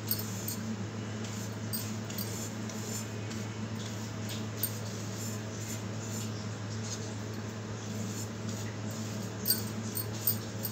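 Fingers scraping and brushing semolina off a steel plate into a steel bowl of flour: light scratching and grainy rustling with small ticks against the metal, a few sharper taps near the end, over a steady low hum.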